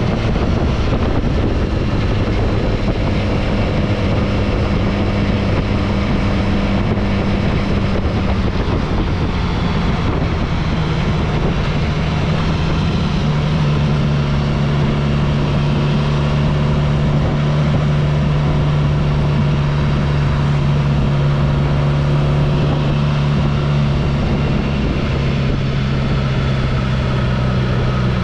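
A vehicle engine running steadily under way, with a constant rushing noise. Its hum drops to a lower steady pitch between about nine and thirteen seconds in.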